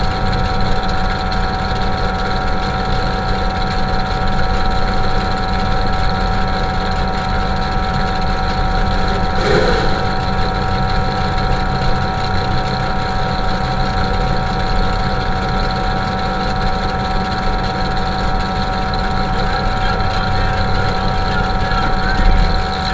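Demolition derby truck's engine idling steadily, heard from inside its stripped cab, with a short burst of noise about ten seconds in.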